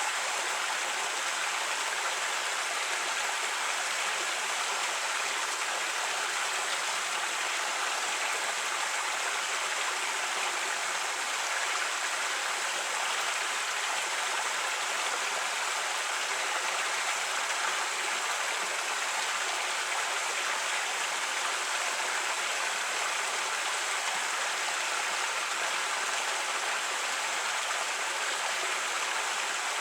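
Creek water running steadily over rocks, a continuous rushing and babbling with no change in level.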